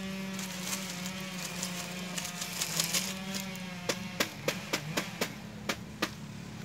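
Metal rod clicking and rattling against a wire-mesh cage trap, in a quick run of sharp metallic clicks starting about four seconds in. A steady low motor hum runs underneath.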